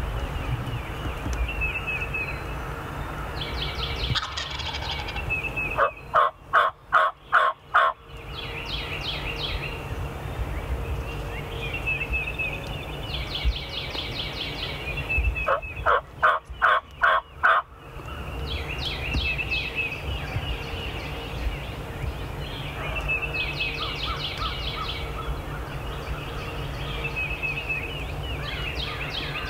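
Turkey call worked by a hunter, giving two runs of loud hen yelps of about six evenly spaced notes each, some ten seconds apart. Songbirds sing throughout.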